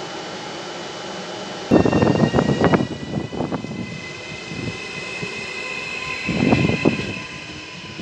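A Trenitalia ETR 521 'Rock' electric multiple unit pulling away, its traction drive whining in faint tones that rise slightly as it accelerates. Loud irregular rumbling and clattering starts suddenly about two seconds in and comes again near the end.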